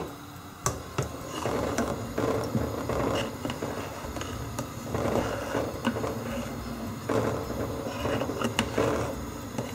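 A long metal spoon stirring hot curdling milk in a large stainless-steel pot, scraping and clinking against the pot with scattered sharp clicks. More yoghurt has just been added to the milk to split it into paneer curds and whey.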